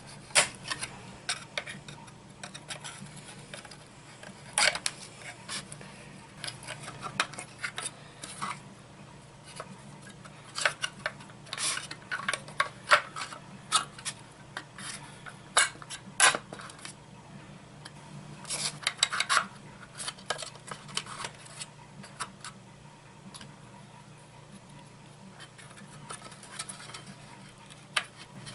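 Irregular metallic clinks and clicks of steel shafts and small parts being handled and fitted as the drive shaft is swapped on a small three-pound rock tumbler, over a faint, steady low hum.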